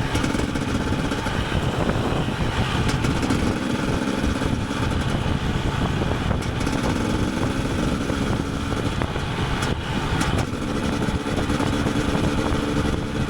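KTM 250 EXC TPI's single-cylinder two-stroke engine running under way, its revs rising and falling with the throttle every few seconds.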